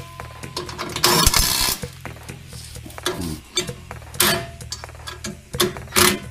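Cordless power driver running bolts into a metal skid plate in three short bursts.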